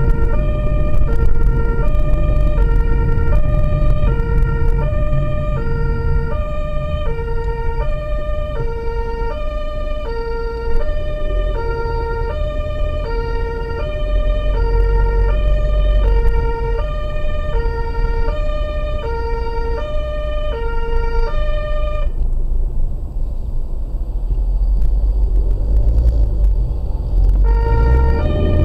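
German two-tone emergency siren (Martinshorn) of a medical transport vehicle on a blue-light run, heard from inside the vehicle. It alternates a lower and a higher note, each lasting about half a second. It stops about three-quarters of the way through and starts again near the end, over a steady low engine and road rumble.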